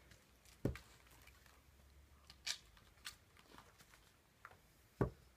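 Split firewood knocking as pieces are handled and set down on a stack: two solid wooden knocks, one under a second in and one near the end, with a few lighter clicks between.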